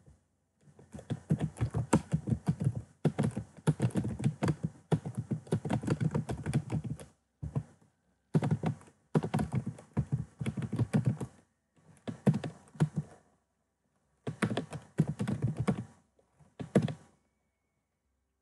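Typing on a computer keyboard, in several fast runs of key clicks broken by short pauses.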